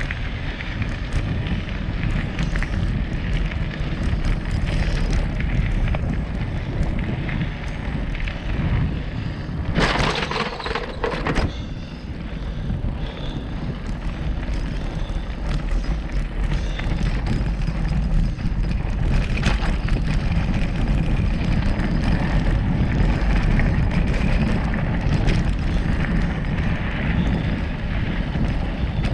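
Mountain bike riding on dirt singletrack: steady wind rumble on the microphone with the tyres rolling and the bike rattling over the trail. About ten seconds in there is a louder hissing burst lasting about a second and a half.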